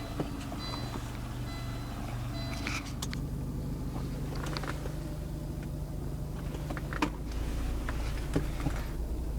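The 2001 Volvo S40 1.9T's turbocharged four-cylinder engine running steadily at a constant pitch, with a few light clicks about seven and eight seconds in.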